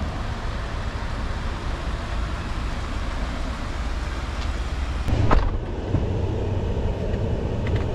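Steady outdoor car and parking-lot noise. About five seconds in, a Ford F-150 pickup's door shuts with a single thud, and the sound turns muffled inside the cab.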